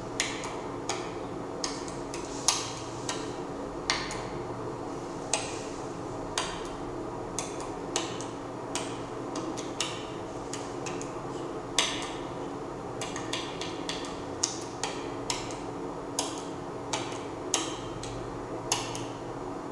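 Sharp clicks and knocks at irregular intervals, roughly one or two a second, some louder than others, over a steady low hum.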